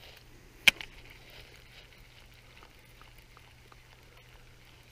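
A single sharp click a little under a second in, from a baitcasting reel being thumbed into free spool for a cast, followed by faint small ticks over quiet background.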